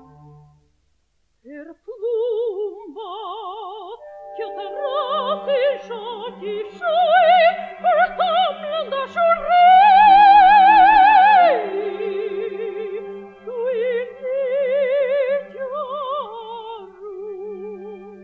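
Operatic soprano singing an aria with wide vibrato over a soft sustained orchestral accompaniment. About ten seconds in she holds a long high note, the loudest moment, then drops back lower.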